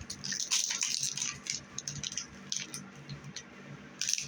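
Crinkly rustling and light rattling of small items and packaging being handled, busiest in the first second or two, then thinning out.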